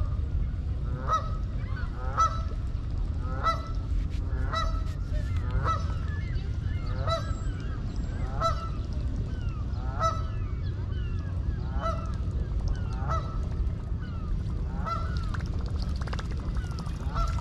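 A goose honking over and over, about one honk a second, over a steady low background rumble.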